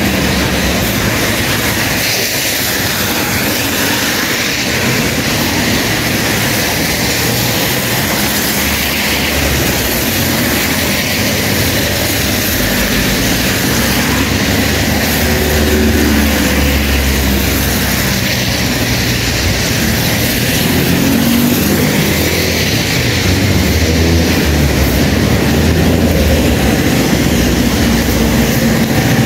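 Traffic on wet city streets: a steady hiss of tyres on wet road with car engines passing, their rumble swelling a few times.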